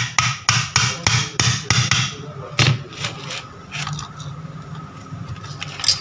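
Small hammer tapping at the centre of a vacuum cleaner motor's metal housing, fitting the rewound armature in place. About eight quick taps in the first two seconds, then a few scattered ones, and a louder tap near the end.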